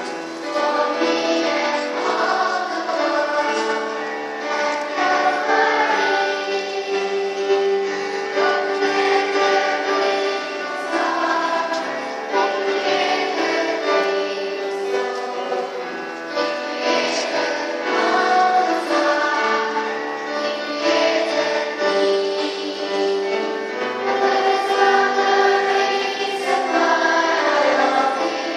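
Choir singing a Christmas piece, voices holding long sustained chords in several parts, without a break.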